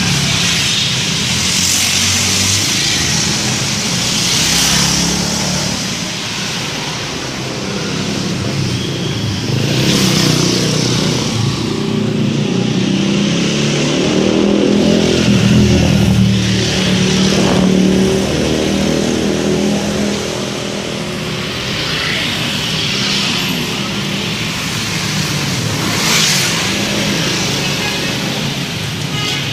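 Bus engine running with road noise, with a musical tune under it.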